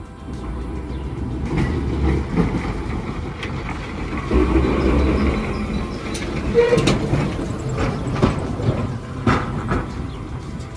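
Two-axle electric tram car rolling past on depot track, its running gear rumbling low, with several sharp knocks in the second half as the wheels cross rail joints and points.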